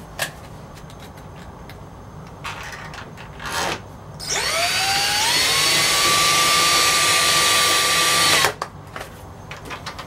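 Cordless drill-driver running for about four seconds, driving the retaining screw back into the edge of a composite door to hold the new lock barrel; its whine rises as it spins up, holds steady, then cuts off suddenly. A few light handling knocks come before it.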